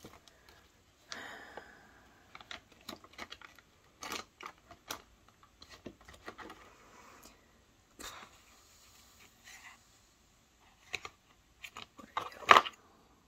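Hands rummaging among plastic makeup tubes, jars and paper sample packets in a plastic drawer organizer: scattered clicks and taps of plastic knocking together, with brief rustling, and one louder knock near the end.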